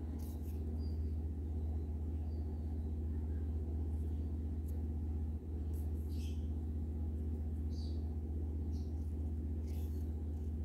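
A steady low hum, with a few faint, short rustles and ticks scattered above it.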